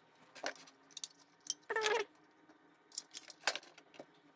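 Light metallic clicks and clinks of hand tools, a soldering iron and metal tweezers, handled on a circuit board, about half a dozen scattered through. A brief wavering squeak comes about two seconds in.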